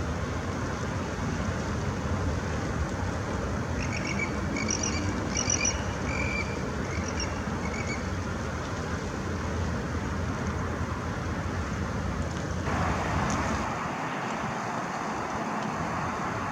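Steady low background rumble, with a run of short, high bird calls repeated for about four seconds from some four seconds in. Near the end the background changes abruptly to a thinner, hissier noise.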